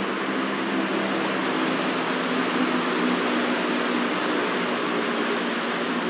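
Steady rushing background noise with a faint low hum underneath; no bird call is heard.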